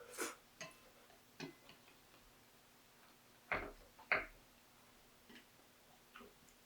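Close-up eating sounds while having ramen: scattered soft clicks and taps, with two louder ones about half a second apart near the middle.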